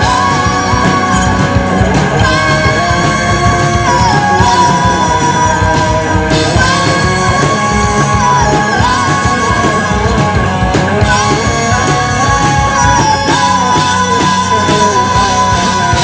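Live rock band playing loudly: a woman singing over electric guitars and a drum kit, with frequent drum and cymbal hits.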